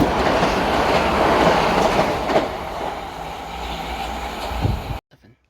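Passenger train running past close by, a loud, steady rush of wheel and running noise that cuts off abruptly near the end.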